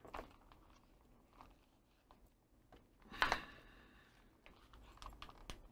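Faint handling noises from the plastic housing of an old Weller soldering gun being fitted together: light clicks and rustles, with a brief, louder clatter about three seconds in.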